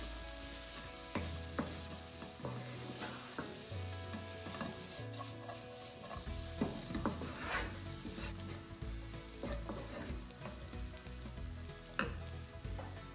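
Diced onion, carrot and green beans sizzling in oil in a nonstick frying pan, stirred and scraped with a wooden spatula, with sharp clicks of the spatula against the pan; the pan is tossed about halfway through.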